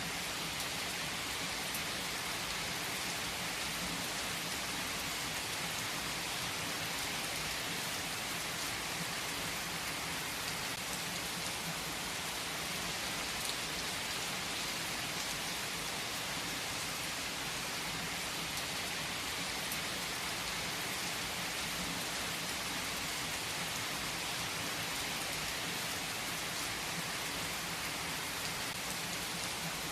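Steady rain falling, an even hiss with a few faint sharp ticks now and then.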